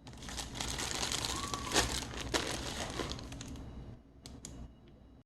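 Plastic bread bag crinkling and rustling as it is handled, dying down about four seconds in to a few faint clicks.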